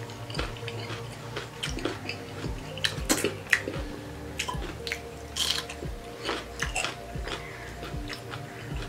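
Close-up eating of soupy pork curry with rice: chewing with irregular wet mouth clicks, over quiet background music.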